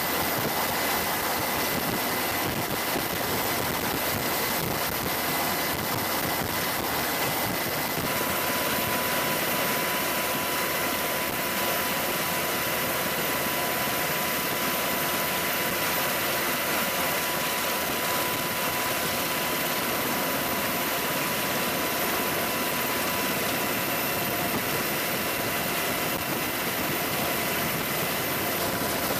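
Steady aircraft engine and rotor drone heard from on board, with a constant high whine; a second, lower whine joins about eight seconds in.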